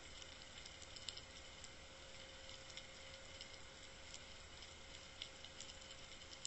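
Faint underwater ambience heard through a sealed camera housing: scattered sharp ticks and crackles over a low steady hum, with a faint steady tone.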